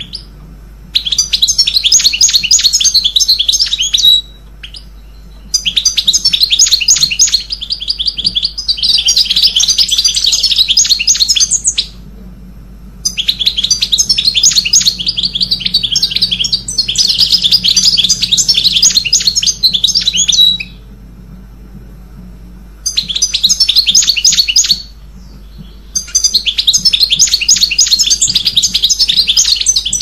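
Small songbird singing rapid, dense trilling song in bouts of a few seconds, broken by short pauses.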